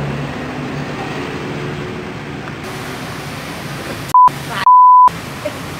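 Two beeps of a steady 1 kHz tone, a short one about four seconds in and a longer one half a second later. Each blanks out all other sound, like a censor bleep. Around them is a steady street background noise with a low hum.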